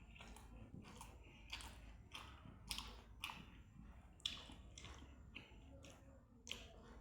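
A person chewing a mouthful of rice and curry, with faint wet mouth clicks and smacks coming irregularly, roughly twice a second.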